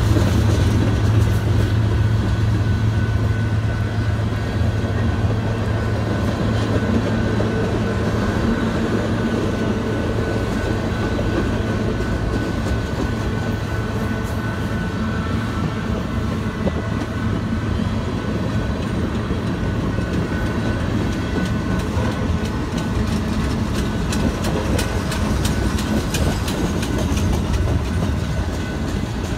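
Freight cars rolling past close by, a continuous rumble of tank cars, then flatcars and covered hopper cars, with wheels clicking over rail joints.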